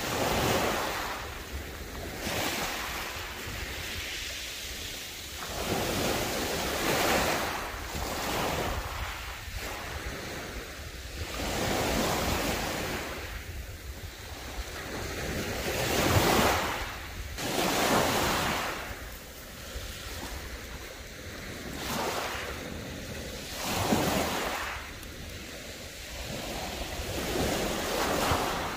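Small waves breaking on a pebble beach and washing back, swelling and fading every few seconds, with wind buffeting the microphone.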